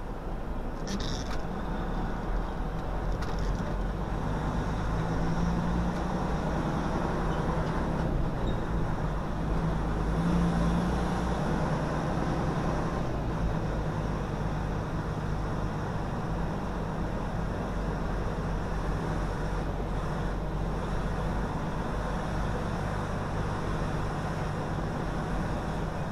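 Semi truck's diesel engine and road noise heard from inside the cab as the truck drives slowly, a steady low rumble. The engine note rises briefly about five seconds in and again around ten seconds in.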